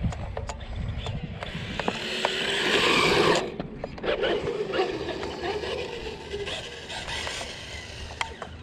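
Traxxas Mustang GT radio-controlled car driving on asphalt, heard from a camera on board: motor and gears whirring with tyre noise and sharp ticks from small jolts. The noise builds to its loudest about three seconds in, then drops off suddenly.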